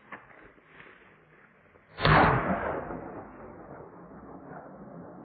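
A single gunshot about two seconds in, followed by its echo rolling away over about a second: a hunter firing at a running wild boar, which is hit.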